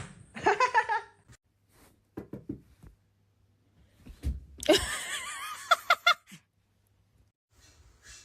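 A person laughing in several separate bursts, the longest about four and a half seconds in.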